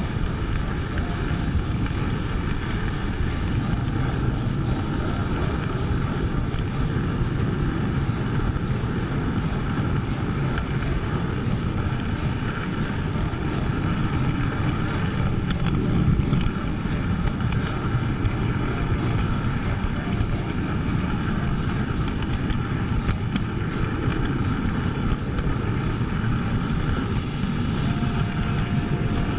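Steady rumble and clatter of an O-gauge model train's wheels rolling on three-rail track, heard close up from a car riding the train.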